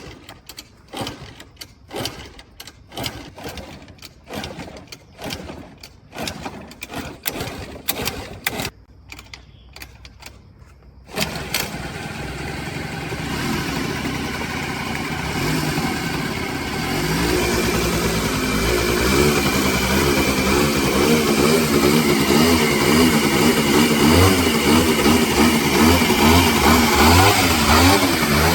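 Two-stroke scooter engine being cranked over in a series of short, separate strokes without catching, then firing up suddenly about 11 seconds in. It keeps running, revving up and down in a wavering pitch.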